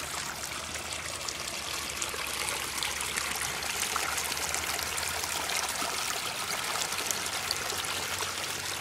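Small, shallow stream trickling steadily over rocks, with many small splashes.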